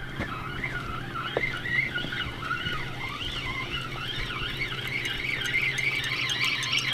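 Spinning reel being cranked against a hooked fish, its gears giving off a continuous warbling whine that rises and falls over and over with the turns of the handle, over a steady low hum.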